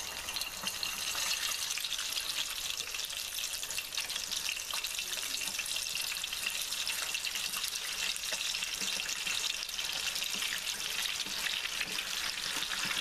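Bacon-wrapped burger being lowered into oil heated to 350 °F and deep frying: a steady, dense sizzle and crackle of bubbling oil.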